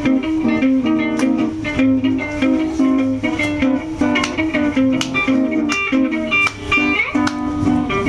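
Electric guitar improvising: a repeating low riff with plucked melody notes picked over it.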